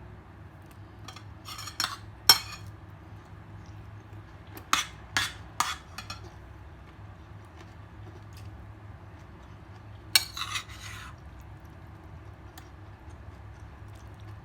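Scattered clinks of dishes and utensils at a meal, a handful of sharp knocks with the loudest about two seconds in, and a couple of short scrapes against a plate, over a low steady hum.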